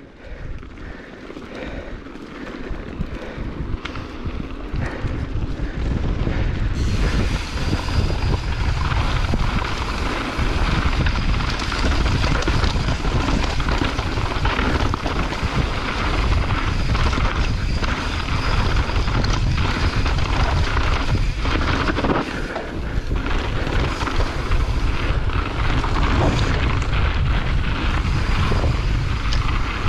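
Wind buffeting a GoPro Hero 8 Black's microphone on a mountain bike riding down a dirt trail, with the tyres running over loose dirt and rocks and the bike rattling over bumps. The noise grows over the first several seconds as the bike gathers speed, then stays loud and steady.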